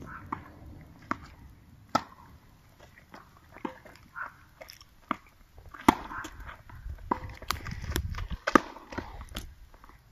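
Tennis rally on a hard court: sharp pops of a tennis ball struck by rackets and bouncing on the court, several in a row, the loudest about six and eight and a half seconds in.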